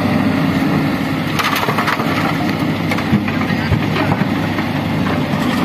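SANY hydraulic excavator running steadily while it loads soil into a dump truck bed. Soil and stones land in the bed with knocks and crackles, a cluster of them about one and a half seconds in and a few more later.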